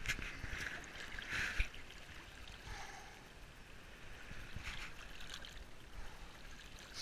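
Sea water lapping and splashing right at a camera held at the surface, with a few soft splashes from a swimmer's arm moving through the water.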